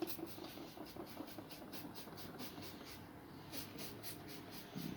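Trigger spray bottle of glass cleaner being pumped quickly: a fast run of short sprays, about five a second, a pause of about two seconds, then another run near the end.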